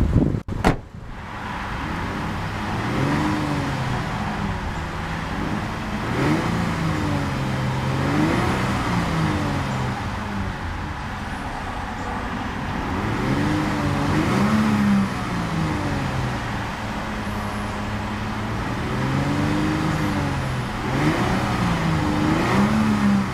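Trunk lid shut with a thump, then the 2006 Lexus IS250's 2.5-litre V6 revved repeatedly in neutral, pitch rising and falling with each blip of the throttle.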